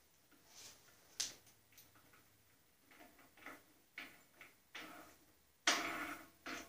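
Faint clicks and light knocks of the hand knobs being threaded back on under an old Delta bandsaw's cast-iron table, with a sharper click about a second in and a longer, louder scrape near the end.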